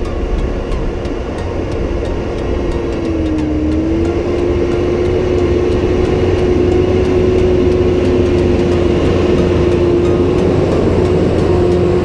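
Large farm tractor pulling a multi-furrow plough through the soil, its engine running steadily under load and growing louder as it approaches and passes close by. A steady whine runs through it and dips briefly in pitch about three and a half seconds in.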